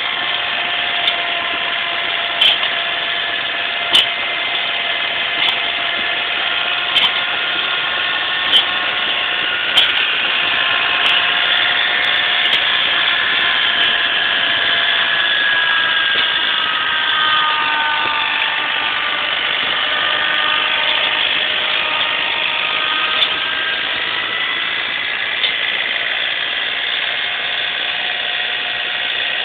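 Engine running steadily under a whine whose pitch dips and rises in the middle of the stretch. A sharp click comes about every second and a half during the first ten seconds.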